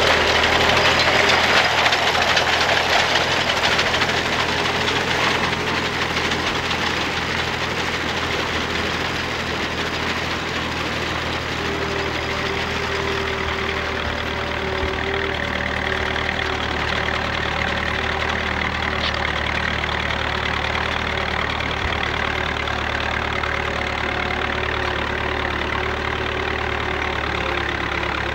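1939 Fordson N tractor's four-cylinder engine running steadily under load as it pulls a reaper-binder, mixed with the steady clatter of the binder's mechanism cutting and tying oats.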